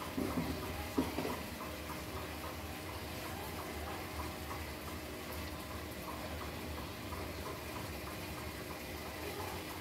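Room tone: a steady low hum with faint, light ticks scattered through it, and two brief soft knocks in the first second or so.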